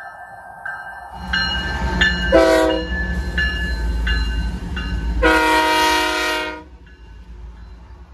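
Canadian Pacific GE ES44AC locomotive passing close by and sounding its horn: a short blast about two seconds in, then a longer one about five seconds in. Under the horn is the rumble of the lead locomotives, which drops off near the end, and a grade-crossing bell dings steadily about every half second.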